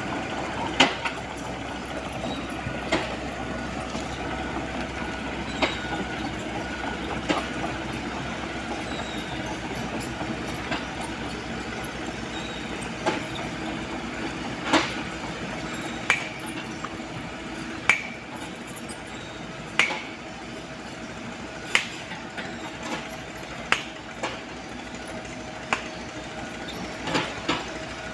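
Komatsu PC75UU mini excavator's diesel engine running steadily, with sharp metallic clanks about every two seconds.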